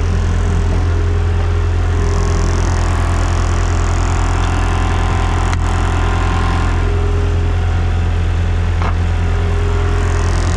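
Heavy diesel engine idling steadily, with a faint click about halfway through.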